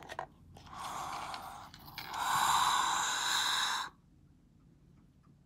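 A person's breath close to the microphone: a softer breath about a second in, then a louder, longer breath that stops abruptly just before four seconds.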